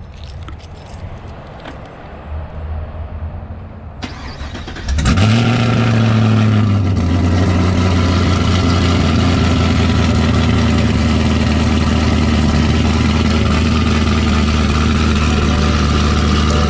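2019 Camaro SS's 6.2-litre LT1 V8, fitted with a Pray Performance stage 3 cam and a ported Holley Hi-Ram intake, cold-starting about five seconds in. It flares up, drops back after a couple of seconds and settles into a steady idle.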